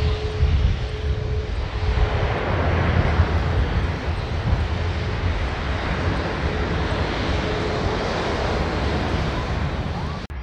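Aircraft engines running on the airfield: a continuous low rumble and roar, growing fuller about two seconds in, from the Airbus A400M Atlas's four turboprops mixed with a taxiing Air Canada jet.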